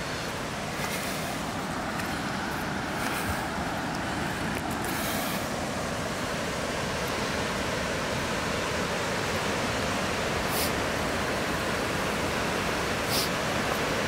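Steady rush of running water, growing gradually louder, with a couple of faint brief ticks near the end.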